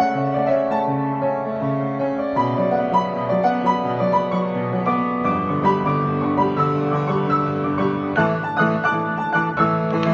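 Piano playing a song: low notes held under a line of struck single notes and chords higher up.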